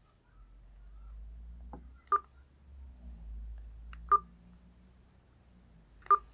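Keypad key-press beeps on a ZTE Z233VL flip phone: three short beeps about two seconds apart, with faint clicks before the first two and a low handling rumble.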